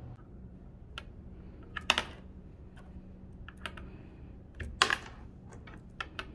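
Small plastic toy motorcycle clicking and knocking against a tabletop as fingers handle it, set it down and push it, in scattered light taps with two louder clatters about two and five seconds in.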